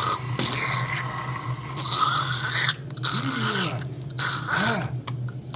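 A dog's low moaning whines, short calls that rise and fall in pitch, two of them in the second half, over a steady low hum.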